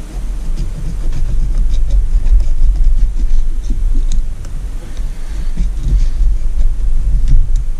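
A steady low rumble, with faint clicks and scrapes of a small pick working at the ring groove of a Mercury 50 HP outboard piston.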